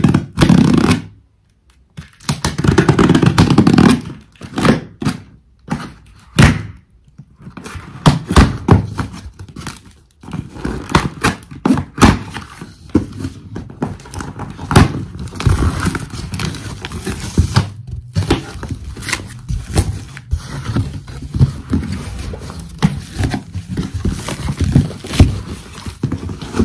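Cardboard shipping box being opened with a kitchen knife: the blade scraping and slicing through packing tape, and the box knocking and thudding as it is handled, with its cardboard flaps pulled open near the end.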